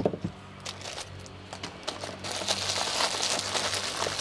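Clear plastic wrap crinkling as a hand presses and handles a wrapped tool bag. It starts light with a few small clicks and gets louder and denser about two seconds in.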